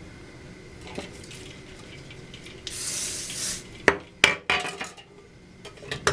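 A short spray hiss lasting about a second, then a few sharp clacks and clinks of hard styling tools and clips being handled while hair is sectioned for crimping.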